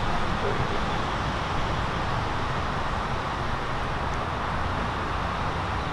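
Steady outdoor background noise with a low rumble, like distant traffic, and no distinct events.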